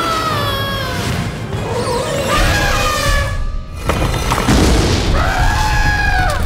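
Cartoon soundtrack: background music over a sliding character's gliding yell at the start, then a low rumbling boom from about two and a half seconds in, and an elephant trumpeting in one long held call near the end.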